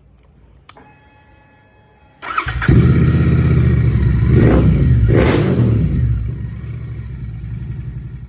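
Royal Enfield Continental GT 650 parallel-twin engine with a Red Rooster 2-in-1 performance exhaust, starting about two seconds in after a click. It is blipped twice in quick succession, then settles to a steady idle.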